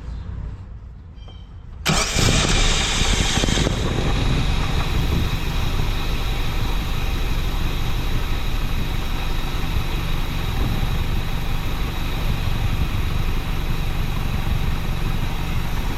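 1987 Mazda B2000's four-cylinder engine starting about two seconds in, running high for a moment, then settling into a steady idle. This is a test start after the fuel filter was relocated and its hoses re-clamped.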